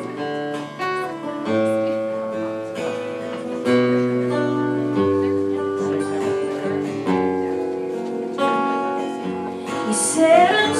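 Acoustic guitar playing a song's intro, strummed and picked chords ringing and changing about once a second.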